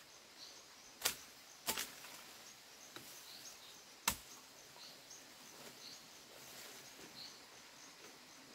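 Quiet forest background with faint, high chirping that repeats throughout. It is broken by three sharp snaps: two close together about a second in, and a louder one about four seconds in.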